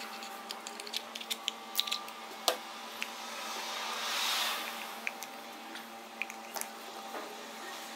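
Scattered small clicks and knocks of metal steering-column parts being handled and fitted together during reassembly, with a brief soft hiss-like swell about four seconds in.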